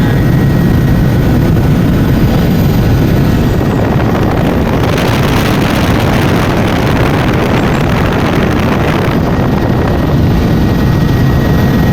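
Helicopter in flight: loud, steady engine and rotor noise, with a stretch of added hiss in the middle.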